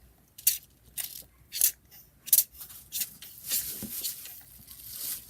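Squeeze bottle of paint being squeezed onto glue: five short sputtering squirts about every half second, then a longer hissing squirt near the end.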